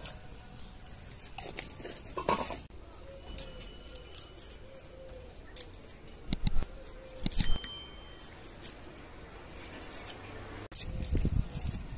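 Small kitchen knife peeling a raw onion: the dry papery skin crackles and the blade makes a few sharp clicks and clinks.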